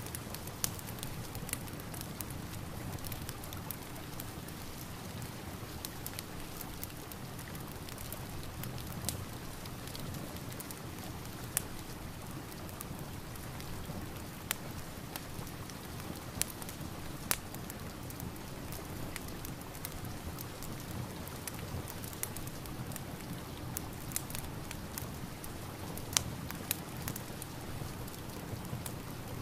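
Steady rain with a crackling fireplace: an even hiss of rain, broken by irregular sharp pops and crackles from the fire.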